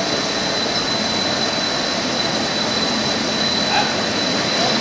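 Stainless steel cut-to-length line running, with stainless sheet feeding through its leveling rolls: a steady machine noise with a thin, steady high whine over it.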